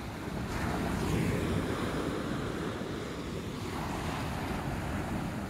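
Ocean surf washing up the beach, swelling about half a second in and again about four seconds in, with wind buffeting the microphone.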